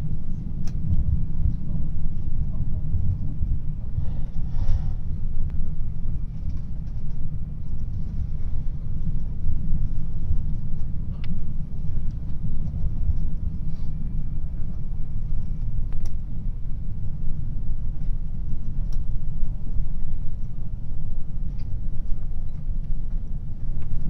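Steady low rumble of a moving train heard from inside the passenger carriage: wheels and running gear on the rails, with a few faint ticks.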